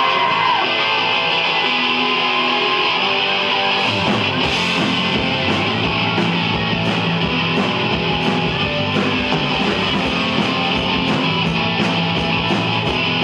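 Live rock band playing a song's instrumental intro: electric guitar holding sustained chords, then drums and bass come in about four seconds in with a steady driving beat.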